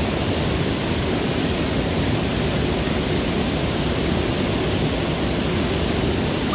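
Really noisy, steady rush of a water current flowing close by, an even hiss without a break.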